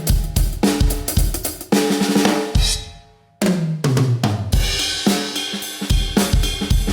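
Medeli MZ928 electronic drum kit played in a groove of kick, snare, hi-hat and cymbals. A little before the middle the beat breaks off briefly, then a fill runs down the toms, each hit lower in pitch, and the groove picks back up.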